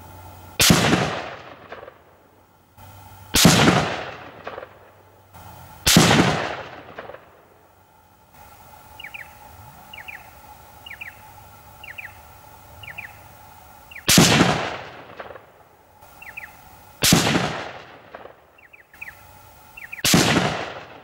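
Six rifle shots from a Lithgow LA102 bolt-action rifle in .243 Winchester, fired as two strings of three about three seconds apart, each a sharp crack with a ringing tail. Between the strings, short high chirps repeat about once a second.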